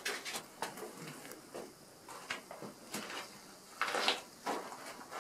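Faint scattered clicks and scuffs, with a short breathy hiss about four seconds in.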